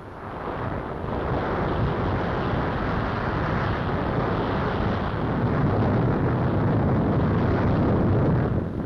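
A continuous heavy rumble of fire and explosion, the newsreel's sound for the Hindenburg airship bursting into flames. It swells over the first second and dips briefly near the end.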